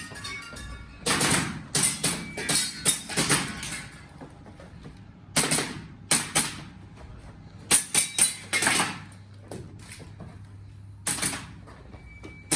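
Airsoft pistol shots fired in quick strings of two to four, with pauses of a second or more between strings, some followed by a brief metallic ring.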